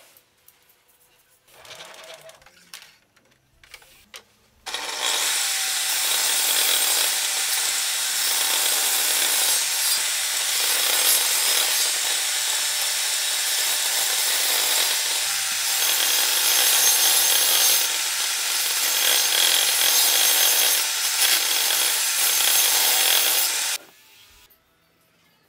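Table saw running and cutting a plywood board into strips: a loud, steady saw noise that starts abruptly about five seconds in and stops abruptly shortly before the end. Before it, only faint handling clicks.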